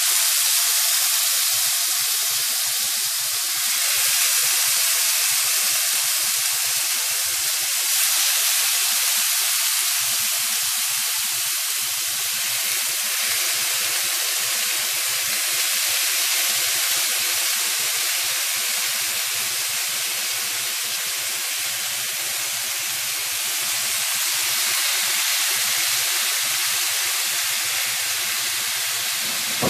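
Marinated chicken and vegetable kebabs sizzling loudly and steadily on a hot ridged grill pan, the hiss swelling a little as more skewers are laid down.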